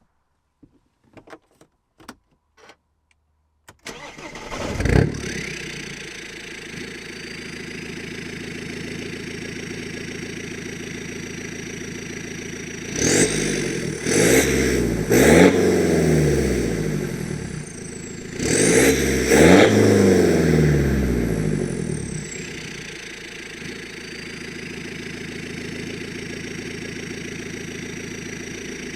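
A few clicks, then a straight-piped BMW 320d's four-cylinder diesel, with DPF and downpipe removed, cranks and catches with a sharp flare and settles into a steady idle. It is then revved in quick blips, three and then two, each followed by a high turbo whistle rising and falling, before dropping back to idle.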